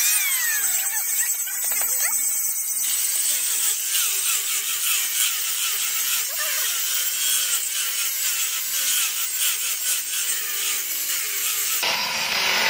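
An electric hand planer shaving a wooden axe handle, then, a few seconds in, a hand-held angle grinder with a sanding disc sanding the same wooden handle. Both give a steady, high-pitched power-tool noise, which grows fuller and lower near the end.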